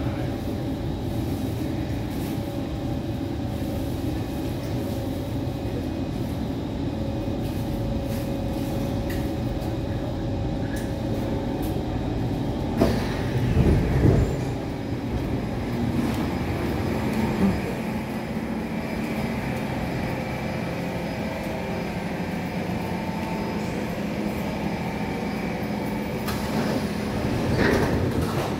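Kawasaki C151 metro train running at speed, heard from inside a car over its traction motor: a steady motor whine with some rising tones over the rolling noise. There is a loud low rush about halfway through, and the noise builds again near the end as the train pulls into the station.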